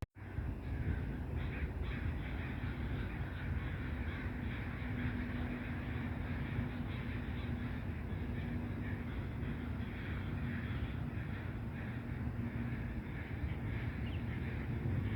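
Crows cawing repeatedly in short calls, over a steady low rumble and hum of lakeside ambience.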